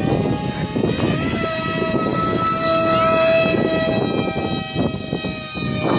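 Radio-controlled model airplane's motor whining in flight, its pitch stepping up about a second in and again around three seconds as the throttle changes. Wind buffets the microphone underneath.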